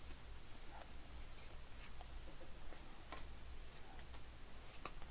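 Trading cards being handled and flipped through one at a time: faint, irregular clicks and short slides of card stock, about one or two a second, over a low steady hum.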